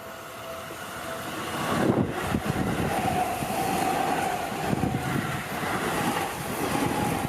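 A Seibu Ikebukuro Line train passing close by at a level crossing. Its running noise builds quickly about two seconds in and carries on with a steady whine over the wheel and track noise. A level-crossing bell rings in the first second before the train drowns it.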